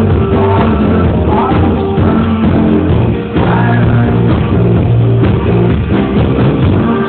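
A band playing a song live, with a singing voice over guitar, sounding muffled and lacking treble.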